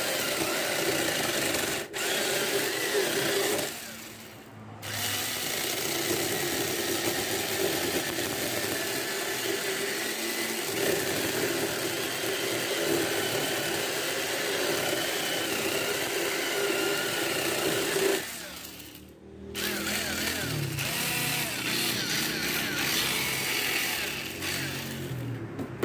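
Homemade cordless electric chainsaw, driven by a modified motorcycle starter motor, running steadily and cutting out briefly twice, about four seconds in and again about nineteen seconds in. Its speed is low, which the builder finds too low for the saw to cut well.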